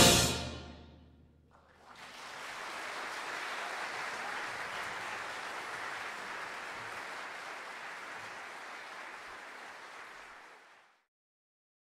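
The orchestra's final chord is cut off and rings away in the hall over about a second, then the audience applauds steadily for about nine seconds, the applause dying away near the end.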